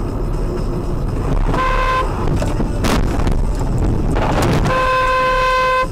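Car horn honking twice, a short honk about one and a half seconds in and a longer one near the end, over steady road noise heard from inside a moving car. A single sharp knock sounds about three seconds in.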